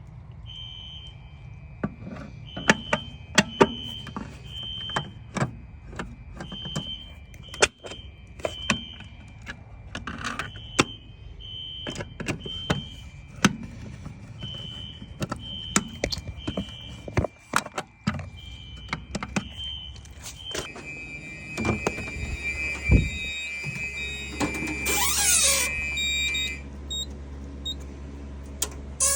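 Fire alarm horns sounding in a temporal-three pattern (three short beeps, a pause, and again) over a steady alarm tone, set off by a pulled pull station on a Simplex 4004 fire alarm system, with many sharp clicks. About 21 s in, a louder, harsher alarm tone takes over, then it cuts off a couple of seconds before the end.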